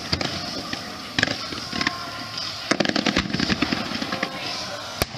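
Aerial fireworks bursting: sharp bangs, several in quick succession around the middle and single ones about a second in and near the end, over a steady rustling background.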